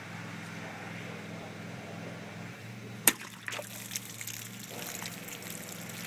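A folding-knife blade slashes through a full plastic water bottle with one sharp crack about three seconds in. Water then splashes and trickles out of the cut bottle, over a steady low hum.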